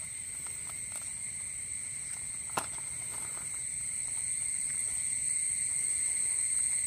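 Steady insect chorus, a continuous high whine with a lower steady tone beneath it, growing slightly louder. A few faint clicks, one sharper about two and a half seconds in.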